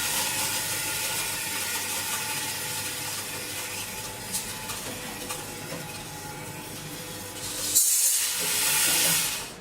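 Powder filling machine dispensing granular material into a box, a steady hiss of pouring grains over a faint motor hum. It cuts out briefly near the end, then a louder hissing pour follows.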